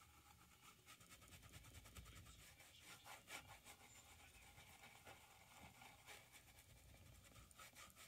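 Faint scratching of a paintbrush working paint into a canvas, a run of short, irregular scratchy strokes over a low rumble.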